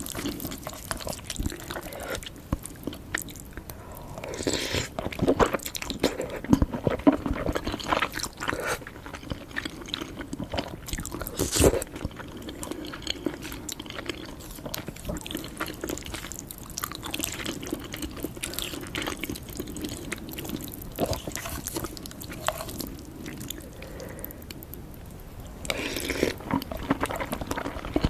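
A person chewing and eating noodles: wet, irregular mouth sounds with scattered clicks, busier and louder a few seconds in and again near the end.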